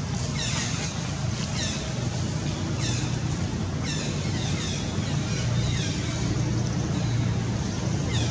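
Steady low rumble of wind noise on the microphone, with short high chirps that fall in pitch, coming every half second or so and pausing for a few seconds in the later part.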